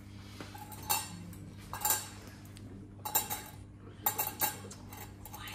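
Metal surgical towel clamps clinking against a stainless steel bowl and tray as they are picked up and handled. There is a sharp clink roughly every second, with a quick run of several clinks a little after four seconds in.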